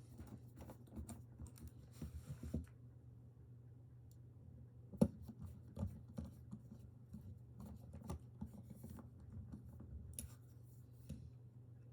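Small scattered clicks and scratches of a Torx screwdriver and handled knife parts as the screws of an OTF knife are tightened, with one sharper click about five seconds in, over a steady low hum.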